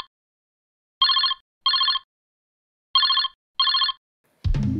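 Telephone ringing tone for an outgoing call: trilling double rings, two pairs about two seconds apart. Near the end a sharp click is followed by held musical tones.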